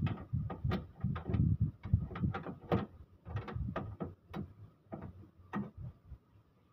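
Uneven series of sharp metallic clicks and light knocks, about three a second, from a hand tool working a fastener at the front of the engine during timing-belt removal; it stops about five and a half seconds in.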